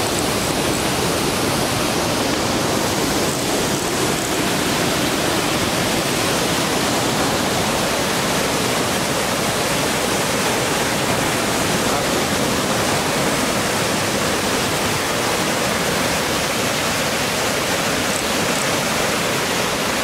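Waterfall and fast, shallow river current rushing steadily, a strong current over shallow water.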